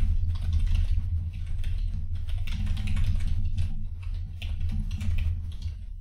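Typing on a computer keyboard: a quick, uneven run of key clicks over a steady low hum.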